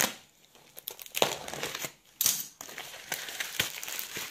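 Bubble-wrap mailer crinkling and rustling as it is handled and opened, in uneven bursts with short pauses, the loudest about a second in and just after two seconds.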